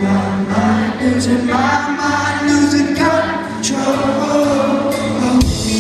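Live rock band playing, with sustained singing over the instruments.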